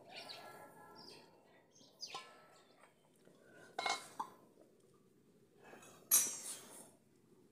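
Brass cooking-pot lid lifted off and set down beside the pot: a few metallic clinks and clatters about two seconds apart, the last a short scrape.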